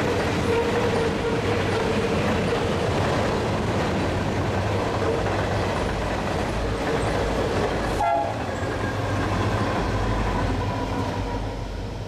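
Long freight train of hopper cars rolling past, with steady wheel-on-rail noise and a sustained tone over it. Diesel locomotives on the rear of the train pass about two-thirds of the way through, and the sound fades as the train moves off.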